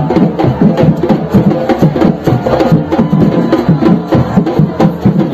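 Afro-Brazilian percussion music: an ensemble of drums playing a steady, driving beat.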